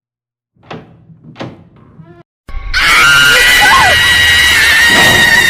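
Two short sharp knocks, then about two and a half seconds in a loud, sustained high-pitched scream that slowly falls in pitch.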